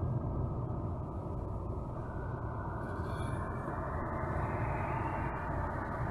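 Car driving on a wet road in the rain: steady tyre-and-road hiss with the low running noise of the car, the hiss growing brighter about halfway through.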